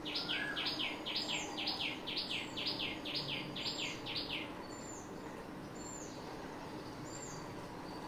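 Small birds calling: a quick run of about ten sharp, sweeping chirps, roughly three a second, that stops about four and a half seconds in. After it come thin, very high single notes about once a second.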